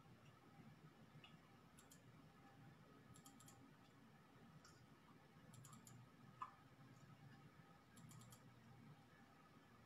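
Near silence, with faint high clicks in short runs of three or four about every two to three seconds.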